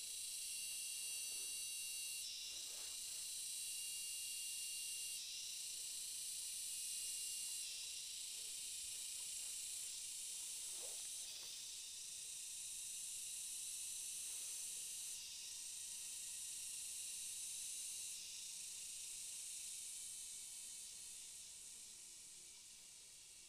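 Insects droning in a high-pitched chorus, stepping up and down in level every few seconds and fading near the end.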